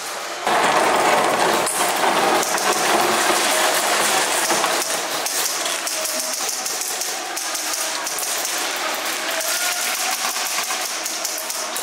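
Airsoft guns firing, a rapid continuous mechanical clatter of shots.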